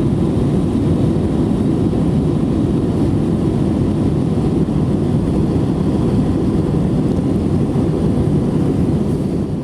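Steady engine and airflow rumble inside the cabin of an Airbus A321-231 with IAE V2500 engines, heavy in the low end with a faint steady whine above it. It fades out near the end.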